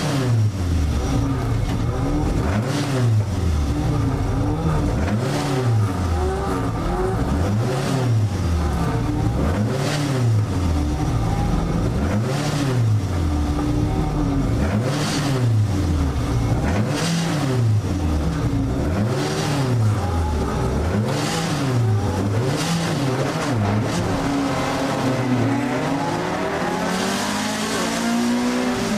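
Alfa Romeo 1750 GTV's twin-cam four-cylinder engine heard from inside the cabin, blipped up and back down about every two seconds while the car holds its place on the grid. Near the end it pulls away, the engine pitch climbing steadily under acceleration.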